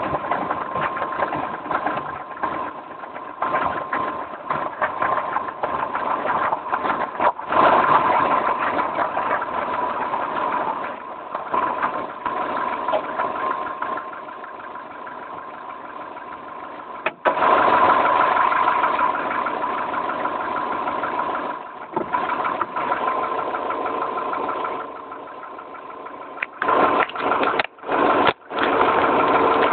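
Volkswagen Mk4 Golf running, with a steady high tone held through the engine noise. The tone is the strange noise the owner is recording. It swells louder twice and is cut by several abrupt short drops near the end.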